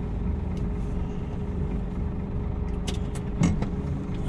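Semi-truck diesel engine running at low speed as the truck creeps forward, a steady low drone. A few short clicks and hisses come about three seconds in.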